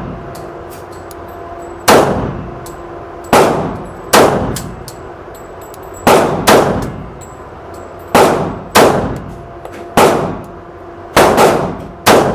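A string of about eleven pistol shots from a MetroArms MAC 1911 fired at an uneven pace, some in quick pairs, each booming and echoing in an indoor range. Spent brass cases clink between the shots over a steady low hum.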